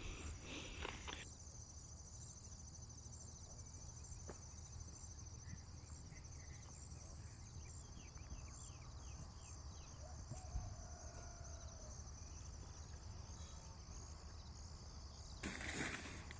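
Faint, steady high-pitched trilling of insects, with a low rumble under it. A few short high chirps come in the middle, and a brief rustle near the end.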